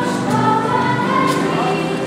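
Children's choir singing a song in held, sustained notes.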